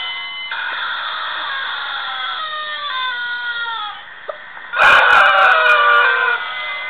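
Rubber chicken squeeze toys screaming: a run of long, downward-gliding squawks, then, about five seconds in, a louder burst of many squeals at once.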